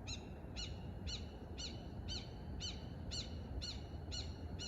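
A bird calling a steady series of short, identical notes, each rising and falling in pitch, about two a second.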